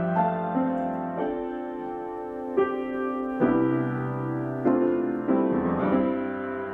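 Slow, gentle solo piano music, single notes and chords struck about every half second to a second and left to ring.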